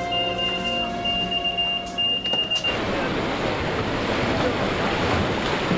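Held music notes for the first two and a half seconds, then the steady rushing noise of sea surf and churning water takes over.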